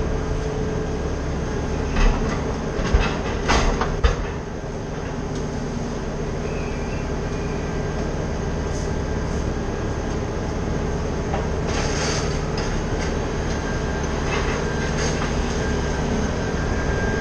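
Crane truck's engine running steadily, with scattered metallic clanks and knocks, a cluster of them between two and four seconds in.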